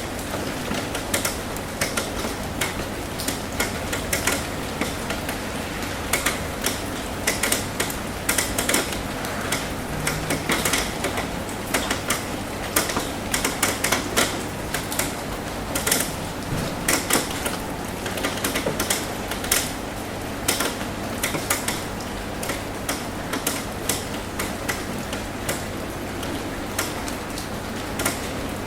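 Rain drumming on a metal roof: irregular sharp taps of individual drops over a steady hiss of rainfall.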